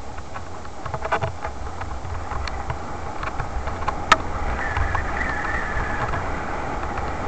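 Riding over a bumpy dirt track, heard from a bike-mounted camera: a steady low rumble of wind on the microphone with rattles and knocks over the bumps, and one sharp knock about four seconds in. A short wavering squeal follows just after it.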